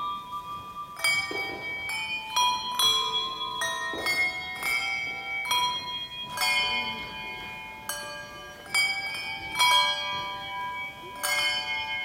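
A handbell ensemble playing a slow tune: handbells rung one after another and several at once, each note starting sharply and ringing on so that the notes overlap, about one new strike every half second to a second.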